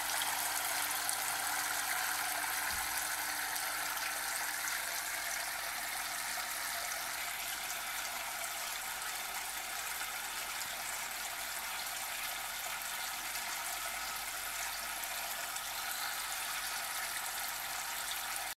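Homemade drinking-straw waterfall fountain running: water pours and splashes steadily into its basin.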